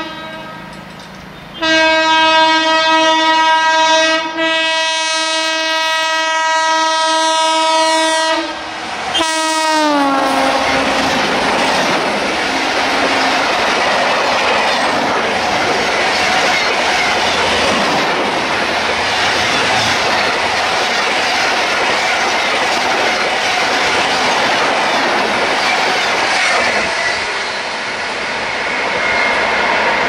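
Horn of a TATA WAP-7 electric locomotive sounding in long, loud blasts broken by short pauses, its pitch dropping sharply as the locomotive passes about ten seconds in. Then a train of LHB coaches rushes past at around 120 km/h, with a steady roar and wheels clattering over the rail joints.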